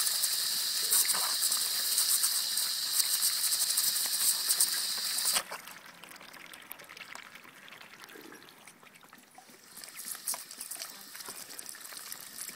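Garden hose spray nozzle running with a steady hiss, the water splashing onto Muscovy ducks drinking from the stream. About halfway through the spray cuts off suddenly, leaving only faint splashes and drips.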